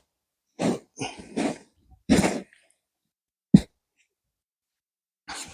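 Hands rummaging through tipped-out potting compost to pick out potatoes: a series of short rustling, scraping bursts, with one sharp knock about three and a half seconds in.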